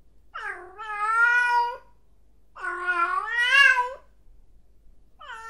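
Domestic cat meowing: two long, drawn-out meows separated by a short pause, and a third meow beginning near the end.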